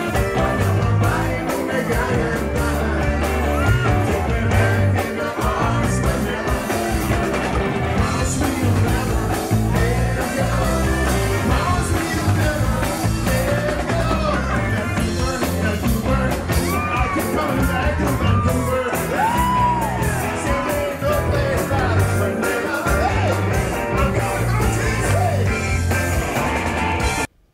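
A band playing music with singing and a steady beat; the music cuts off abruptly near the end.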